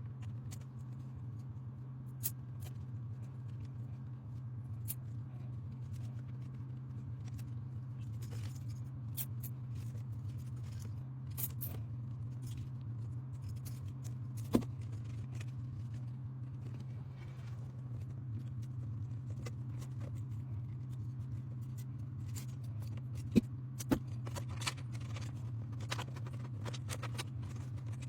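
Scattered small clicks and light scrapes over a steady low hum, with a few sharper clicks about halfway through and again near the end.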